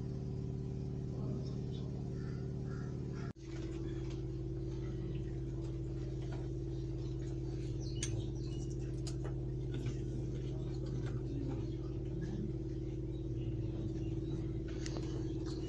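A steady low hum made of several fixed tones, with a brief dropout about three seconds in and a few faint clicks over it.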